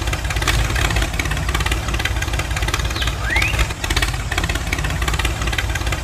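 Homemade mini tractor running with a steady, rapid engine-like chugging as it pushes loose sand with its front levelling blade.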